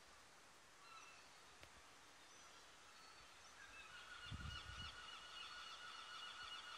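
Faint gull calls: a few short, high calls in the first seconds, then from about four seconds in a steady, wavering call that keeps going. There are two brief low thumps around the same time.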